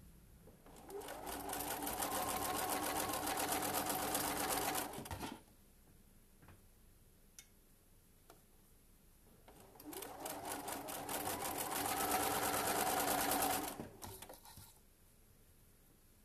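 Sewing machine stitching in two runs of about four to five seconds each, speeding up at the start and slowing to a stop at the end. These are the short seams across the wide end of folded fabric wedges, chain-pieced one after another.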